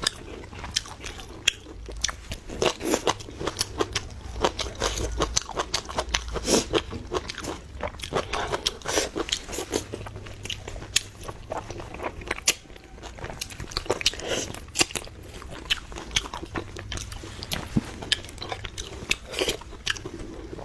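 Close-miked eating: a person biting and chewing crunchy food, with many sharp, irregular crunches.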